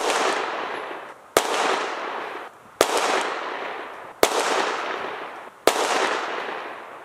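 Handgun fired five times at a slow, even pace, about one and a half seconds between shots, each shot followed by an echo that fades over about a second. It is a five-round group fired to check the zero of a red dot sight.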